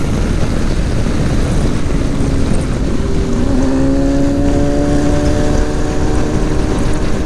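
BMW motorcycle riding at road speed, with heavy wind noise on the microphone; about three seconds in, the engine's note comes through and climbs slowly as the bike accelerates.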